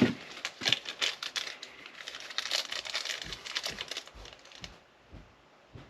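Sticky tape being peeled and handled: a run of crinkling and crackling that stops a little before five seconds in, followed by a couple of soft low knocks.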